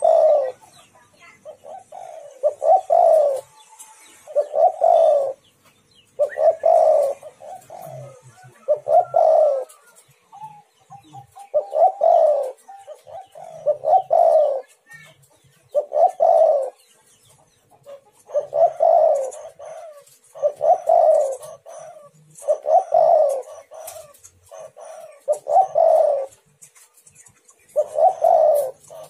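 Spotted dove (tekukur) cooing over and over, a low repeated coo phrase about every two seconds.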